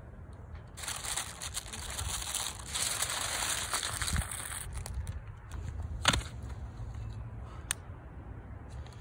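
Aluminium foil being crumpled and folded around a fish fillet, a dense crinkling that runs for about four seconds from a second in. Later, two sharp clicks.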